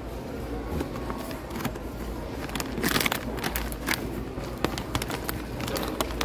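A plastic snack pouch crinkling and rustling as it is pulled from its display box and handled, with a few sharp clicks, over a steady low hum.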